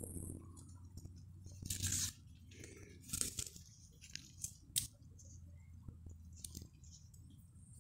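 Pepper plant leaves and stems rustling and crackling as a hand pushes through the foliage, with a few sharp clicks.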